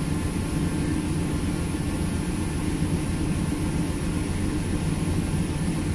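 1997 GMC Sierra K2500's 5.7-litre V8 idling steadily, just started from cold and still in open loop.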